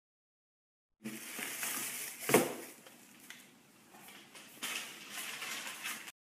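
A person chewing green grapes close to the phone's microphone, starting about a second in, with one sharp bite about two seconds in. The grapes are soft, not crunchy.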